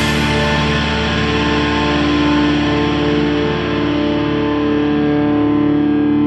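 Rock music: a distorted electric guitar chord held and ringing on, its brightness slowly fading.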